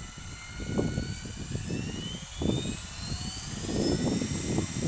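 Model Thunder Tiger Innovator MD-530 helicopter spooling up on the ground: a thin motor-and-rotor whine rising steadily in pitch. It is overlaid by loud, irregular low gusts of wind buffeting the microphone.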